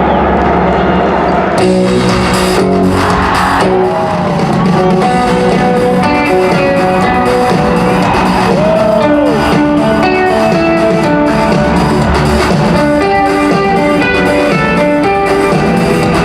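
Loud rock music with guitars filling a large arena, its full sound coming in about a second and a half in.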